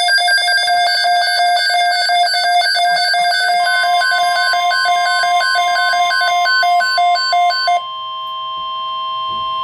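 NOAA Weather Radio emergency alert sounding: rapid electronic alarm beeping, joined about three and a half seconds in by a steady single alert tone. The beeping stops about eight seconds in, leaving the steady tone alone.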